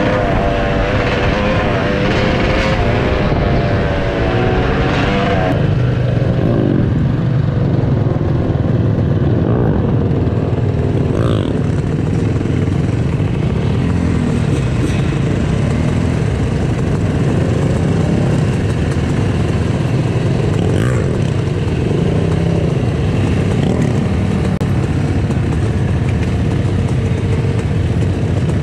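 Yamaha YZ250 two-stroke dirt bike engine running as it is ridden, its pitch rising and falling with the throttle. About five seconds in the sound shifts from a higher, steadier note to lower, repeated revs.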